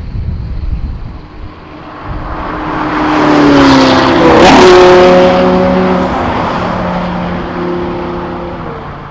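Ferrari 458 Italia's naturally aspirated V8 at high revs passing by: it grows loud, peaks about halfway through with a drop in pitch as it goes past, then fades away.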